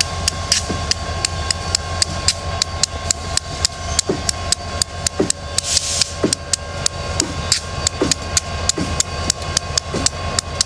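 A CSX diesel-electric locomotive rumbling low as it rolls slowly past, with a bell ringing rapidly and evenly, about four to five strokes a second, over it.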